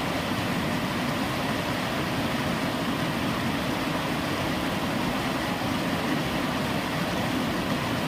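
Fast-flowing river water rushing over rocks, a steady, even noise.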